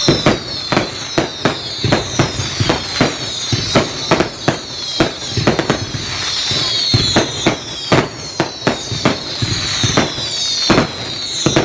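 Fireworks display: a dense, irregular string of bangs, several a second, with high falling whistles running over them.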